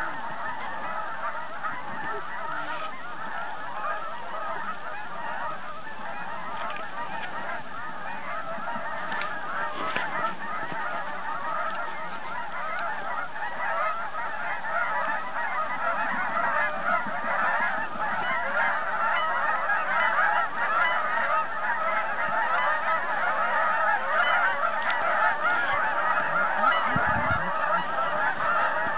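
A large flock of Canada geese honking, many birds calling over one another, the calling growing louder about halfway through as the flock comes in to land.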